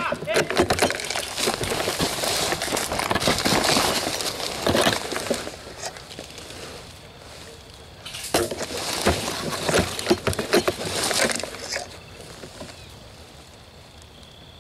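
Dry grass and leaves crackling and rustling against a ghillie suit as a player moves through them on the ground, in two spells of several seconds each, the second starting about eight seconds in.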